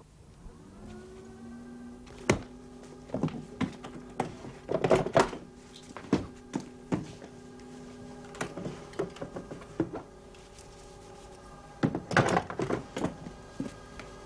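A paper shredder's electric motor spins up, rising briefly in pitch, then hums steadily. Several sharp knocks and paper-handling clatter come over it, loudest about five seconds in and again near the end.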